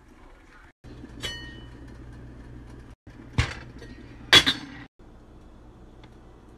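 Cookware clatter on a stovetop: a single ringing metal clink a little over a second in, then two sharp knocks of a pan about a second apart, the second the loudest, over a low steady hum.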